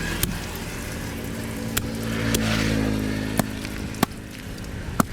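A motor running steadily, with six sharp knocks at uneven intervals, like a blade chopping through fish onto a hard surface.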